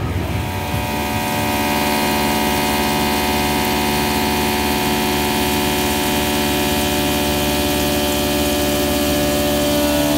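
Bridge-type CNC milling machine cutting metal with a long tool: a steady whine of several held tones over the hiss of the air-mist coolant spray.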